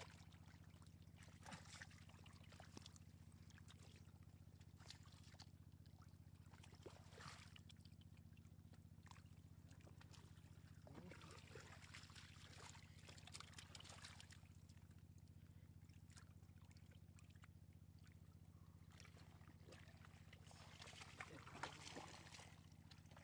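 Faint sloshing and trickling of canal water in short, irregular spells over a steady low hum.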